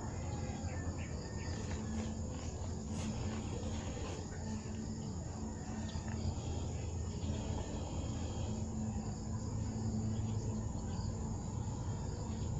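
Steady high-pitched trill of insects, unbroken throughout, over a steady low hum.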